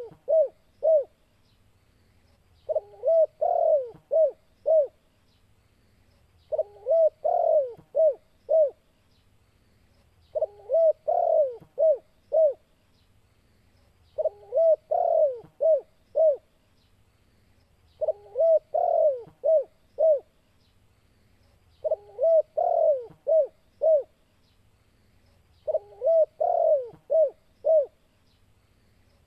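Male spotted dove (tekukur) cooing: the same phrase of about five coos, a longer run of notes followed by short separate ones, repeated about every four seconds. It is the loud breeding-season call of a male, given as a challenge to a rival.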